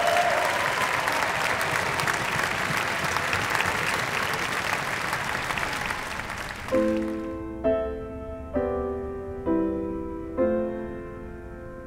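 Audience applauding, fading out about two-thirds of the way through. Slow piano chords then come in, struck about once a second and left to ring.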